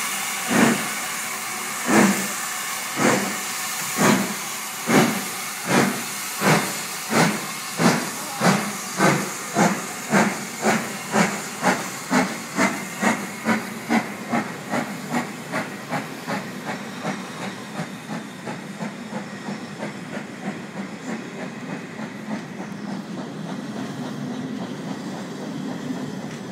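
Steam locomotive pulling away, its exhaust chuffing over a steady steam hiss. The beats quicken from about one every second and a half to several a second and grow fainter as it moves off. Near the end they give way to a steady rumble of the carriages rolling past.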